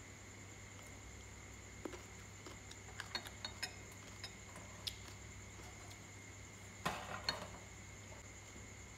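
Wooden chopsticks clicking and tapping against ceramic bowls and a glass bowl while eating: a scattering of light clinks, a quick run of them around three seconds in and the loudest cluster about seven seconds in. A faint steady high whine sits underneath.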